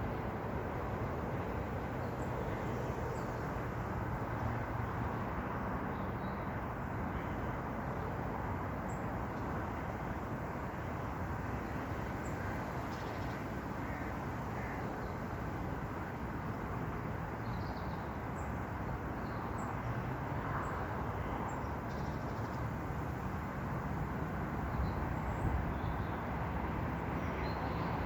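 Steady outdoor background noise with a low rumble, and faint short bird chirps scattered through it.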